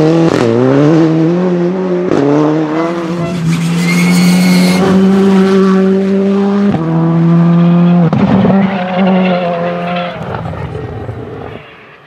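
Rally car's turbocharged four-cylinder engine at full throttle, accelerating hard out of a hairpin. The revs climb and break sharply at each gear change, hold high and steady, then fade away near the end as the car drives off.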